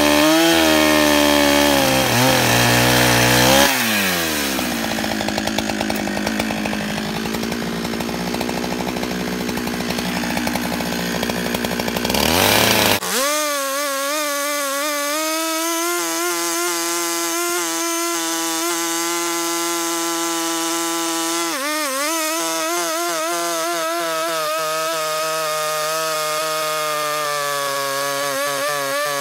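Large two-stroke chainsaw running at full throttle, cutting through a shagbark hickory log, its engine pitch wavering as the chain loads up in the wood. About 13 seconds in the sound changes abruptly to a steadier, thinner engine tone.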